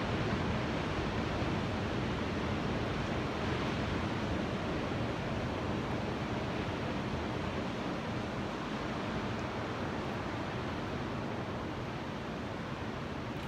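Ocean surf: a steady, even wash of waves with no separate breakers standing out.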